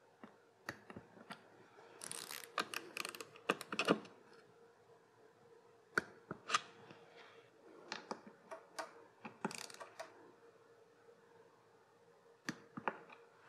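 Light clicks and ratcheting of a Tekton click-type torque wrench and socket working the 10 mm nuts of an engine part, with metal tool handling. The clicks come in two short flurries, with single clicks between them.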